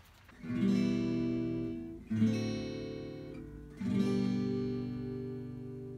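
Background music: an acoustic guitar strumming three chords in turn, each left to ring and fade.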